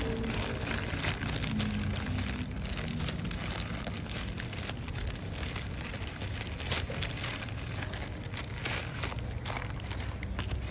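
Plastic courier mailer bag crinkling and rustling in irregular crackles as it is handled and pulled open.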